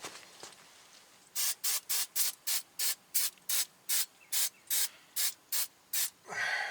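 Aerosol can of Fluid Film rust inhibitor sprayed in short, quick pulses, about three hisses a second, then one longer spray near the end, to coat rusty metal against corrosion.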